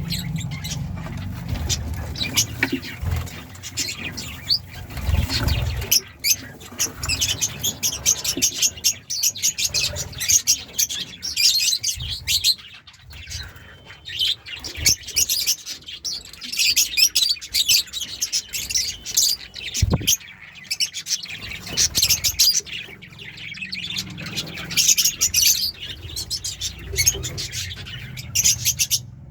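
A flock of lovebirds chattering with rapid, overlapping high-pitched chirps and squeaks, with a single low thump about two-thirds of the way through.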